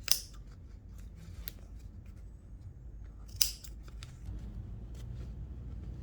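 Thread being snipped while zigzag stitching is unpicked on jeans: two sharp snips about three seconds apart, with lighter clicks of handling between.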